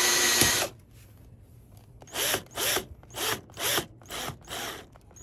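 Cordless drill driving a screw into a stainless steel tube joint. The motor runs steadily for under a second at the start, then after a pause comes in about six short pulses, each spinning up and back down.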